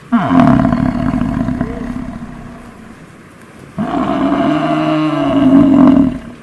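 Cow mooing: two long, loud moos, the first fading away over about three seconds, the second starting near the four-second mark.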